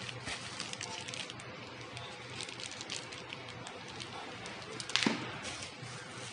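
Light handling noise: scattered small irregular clicks and rustles over a faint background hiss, with one louder knock about five seconds in.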